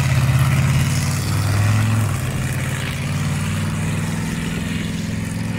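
Car engine running steadily close by, with its pitch settling slightly lower about two seconds in.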